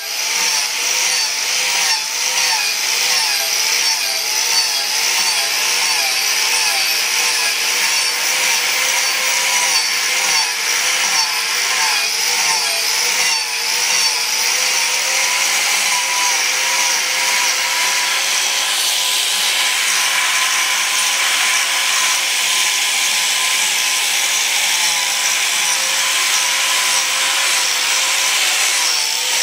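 Handheld electric grinder sanding the surface of a turned African padauk vase, its motor whine mixed with the rasp of the disc on the wood. The whine wavers up and down in pitch through the first half as the tool is pressed and eased against the wood, then holds steadier.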